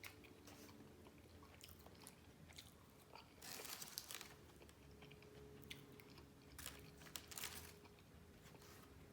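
Close-up mouth sounds of a person eating: quiet chewing and biting, with two louder spells of crunchy bites about three and a half and seven seconds in.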